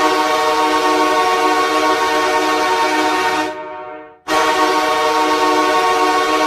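Ice hockey arena goal horn sounding one long, steady, loud blast that fades out after about three and a half seconds. A second blast cuts in abruptly just after four seconds.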